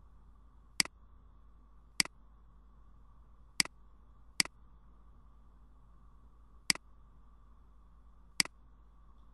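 Computer mouse button clicked six times at uneven intervals, each a short, sharp click, over a faint steady hum.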